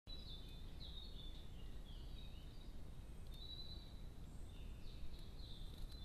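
Small garden songbirds giving short, high chirping calls in little groups of notes, some falling slightly in pitch, over a steady low rumble.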